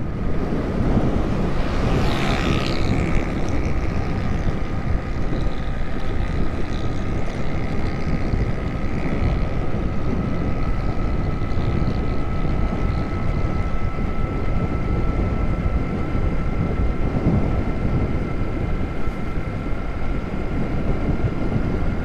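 Wind rushing over the microphone and road noise from a vehicle travelling at speed, with a faint steady whine underneath.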